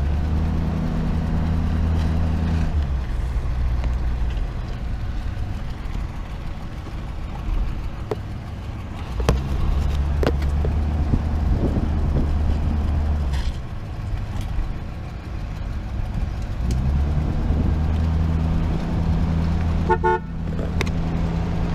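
RV engine running as the vehicle pulls away and drives on, its low drone swelling and easing several times with the throttle. A short horn toot sounds near the end.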